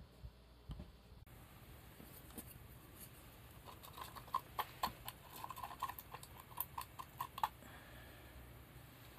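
Wooden stick stirring glue in a paper cup, knocking against the cup wall in a quick, irregular run of light, sharp taps for about four seconds in the middle.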